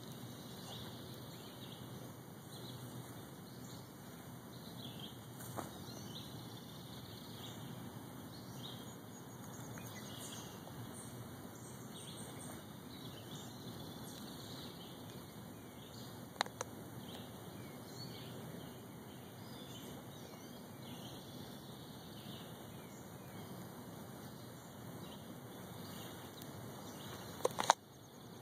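Faint outdoor ambience: small birds chirping and singing at a distance over a steady low hiss, with three short sharp clicks spread through, the last near the end.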